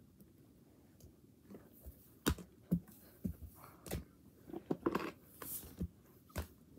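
Hard plastic toy animal figurines being handled, making a scatter of light, irregular knocks and clicks with soft scuffs in between.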